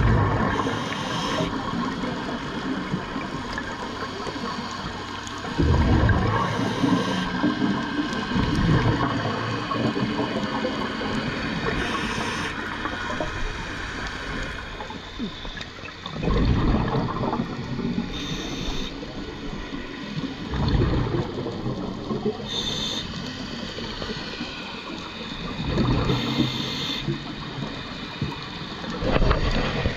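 Scuba diver breathing through a regulator underwater. Each inhale brings a short high hiss and each exhale a loud rush of exhaust bubbles, repeating about every four to five seconds over a steady rush of moving water.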